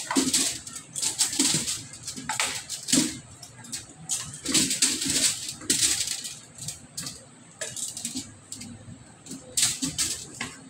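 Metal tongs clinking and scraping against an aluminium baking tray while chunks of potato and carrot drop onto crinkling aluminium foil, in irregular bursts of clatter and rustle. Near the end the tray is tipped and the rest of the vegetables slide out onto the foil.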